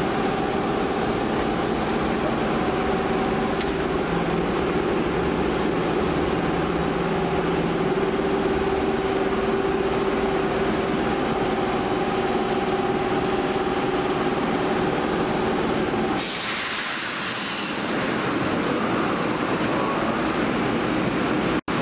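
Osaka Metro 66 series subway train at an underground platform, giving a steady electrical hum over running noise. About sixteen seconds in, the hum stops and a sudden burst of compressed-air hiss follows, lasting a second or two.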